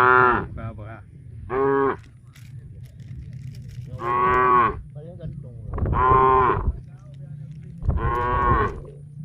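Cattle mooing: five separate calls, the first two short and the last three longer, each about two seconds apart. A steady low hum runs beneath them.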